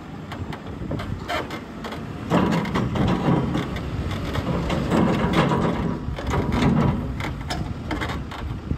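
Diesel engine of a JCB telescopic loader working under hydraulic load as its silage grab bucket tips silage into a trailer, with knocks and clanks from the bucket. The engine note rises and grows louder about two seconds in and stays up until near the end.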